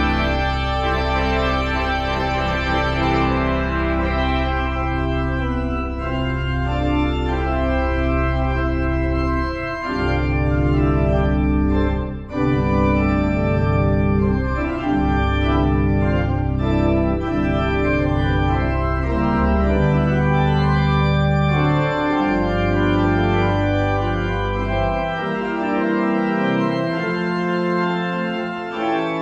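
Organ playing slow sustained chords over deep bass pedal notes. The bass drops out about four seconds before the end.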